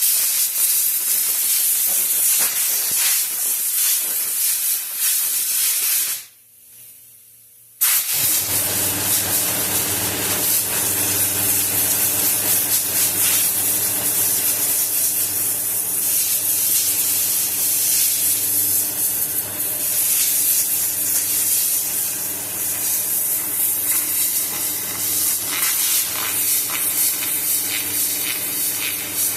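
Compressed air hissing from an air-hose blow gun as it blows dust out of a car cabin air filter. The air cuts off for about a second and a half around six seconds in, then resumes. From there the loud hiss has a steady low hum of the air compressor running underneath it.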